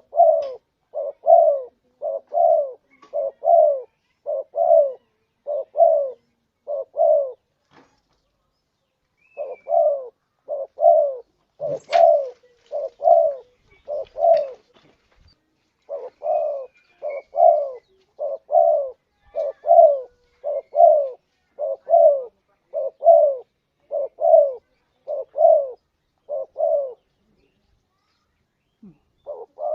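Spotted dove cooing: the lure call used to draw in wild birds. Low coo notes repeat evenly about twice a second in long runs, broken by a few pauses of a second or two.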